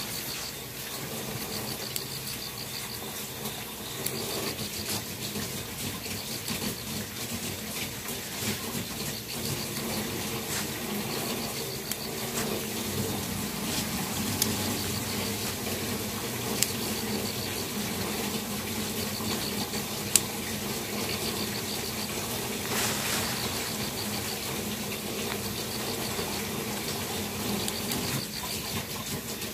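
Leafy stems rustling and snapping now and then as they are peeled by hand, over night insects chirping in short, repeated high trills.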